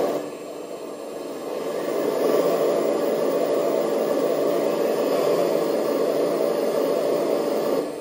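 Kabolite 970 RC hydraulic excavator running, its hydraulic pump and engine sound module making a steady whir as the arm and bucket move. The whir swells louder about two seconds in and drops back just before the end.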